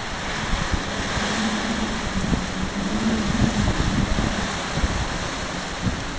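Strong tropical-storm wind blowing in gusts and buffeting the microphone, with a low wavering tone through the middle.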